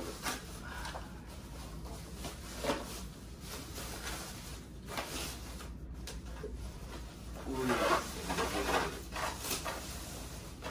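Rustling and crinkling of the white protective wrapping sheets as they are pulled back off a monitor in its box, in scattered bursts that get busier about three-quarters of the way through.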